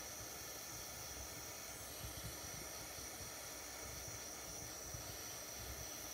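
Small pen-style butane torch burning with a steady hiss, its flame held on metal to heat it for soldering.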